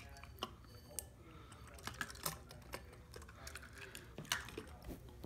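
Faint, irregular light clicks and taps of a small diecast toy car knocking against a ceramic bowl as it is moved about in the water.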